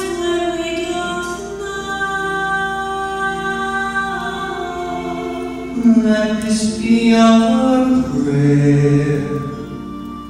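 A man singing a slow melody into a handheld microphone, holding long notes.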